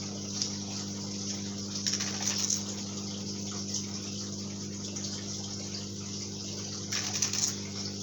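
Microwave oven running with a manga volume inside: a steady electrical hum under the whir of its fan. Two brief noisier bursts break in, about two seconds in and near the end.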